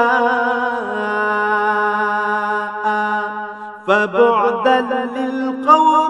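A male reciter chanting Qur'anic Arabic in melodic tilawat style. He draws out one long held note for nearly four seconds, stepping slightly lower partway through, then moves into quicker ornamented turns.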